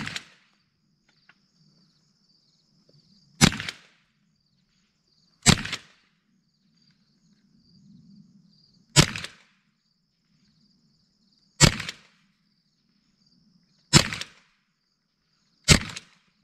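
Ruger 10/22 .22 LR semi-automatic rifle firing CCI Blazer rounds, about seven single aimed shots (one right at the start) spaced two to three and a half seconds apart, each a sharp crack with a short tail. These are the test shots for zeroing a newly mounted scope.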